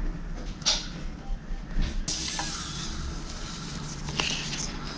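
Soft rustling and scraping of paper being handled at a table, in a few short scratchy bursts over a low steady hum.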